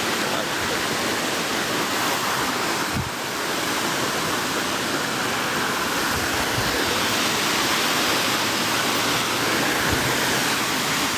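Steady rushing of a waterfall, with a few faint low thumps.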